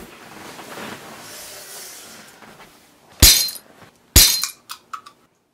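Two loud smashes about a second apart, each ringing briefly, followed by a few small clinks: something brittle breaking.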